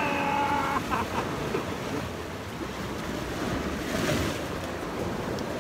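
Sea waves washing against shoreline rocks, with wind on the microphone; a wave breaks and splashes about four seconds in.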